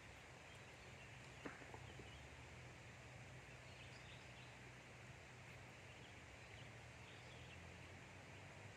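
Faint outdoor ambience by a river: a steady low hum and hiss with faint, scattered bird chirps, and a single soft click about a second and a half in.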